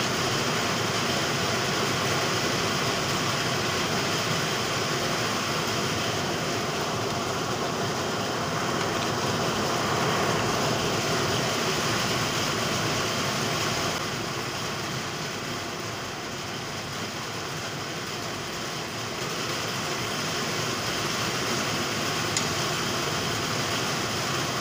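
Rain falling, a steady hiss that eases slightly a little past the middle.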